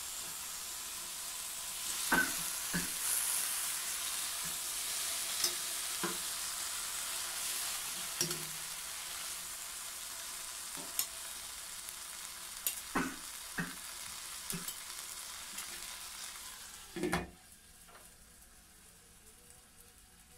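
Whole marinated chicken sizzling in a kadhai as it is turned with steel tongs, with scattered clinks of the tongs against the pan. About 17 seconds in a knock as the glass lid goes on, and the sizzle becomes much quieter.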